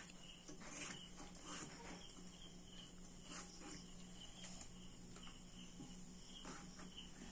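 Faint cricket chirping, a small repeated pulse about twice a second, with a few soft knife cuts as a tomato is sliced by hand over a steel pot.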